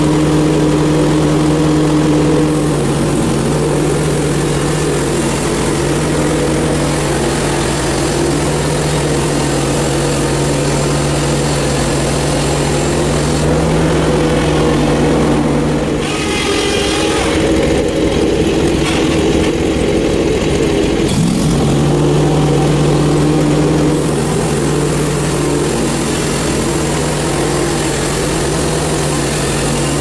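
Hud-son portable bandsaw mill's gasoline engine running steadily as the band blade saws a hemlock log. For about five seconds past the middle the engine's steady tone drops away under a higher hiss, then comes back.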